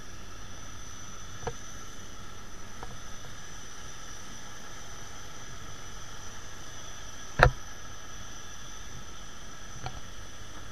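Steady whine and rumble of a jet airliner and ramp equipment, with several high whining tones held level. One sharp knock comes about seven seconds in, with fainter knocks earlier and near the end.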